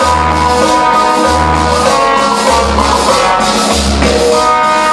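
Loud cumbia music playing over a sonidero's DJ sound system, a low bass note coming round about every 1.2 seconds under percussion and melody.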